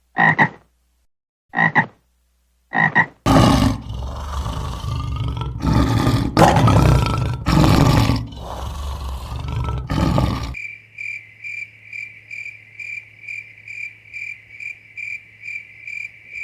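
A run of animal calls: a few short croaks, frog-like, in the first three seconds, then about seven seconds of loud, rough roaring from a large animal. This gives way to a high, even chirp repeated about twice a second.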